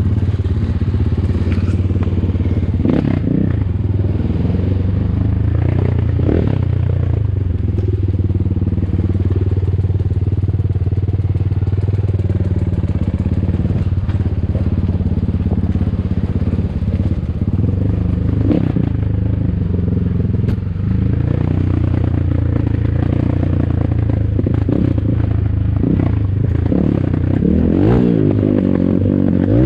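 Enduro motorcycle engine running steadily at low revs, with a few short rises in revs and occasional knocks and clatter.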